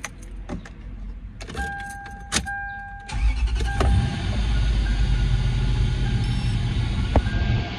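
Toyota 2UZ-FE V8 being started: a few clicks and a short electronic chime tone with the ignition on, then about three seconds in the engine cranks and fires and settles into a steady idle.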